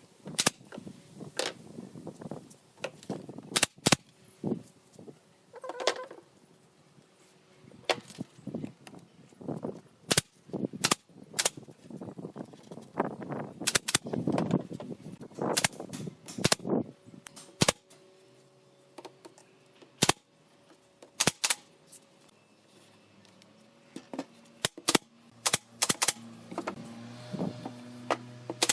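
Sharp knocks and clicks of hand work on wood, irregular and many.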